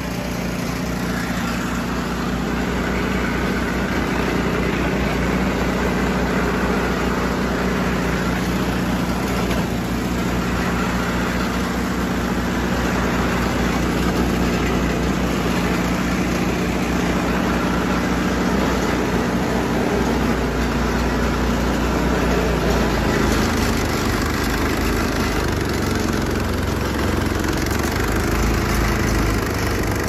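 Husqvarna snowblower's petrol engine running steadily, its note changing about twenty seconds in.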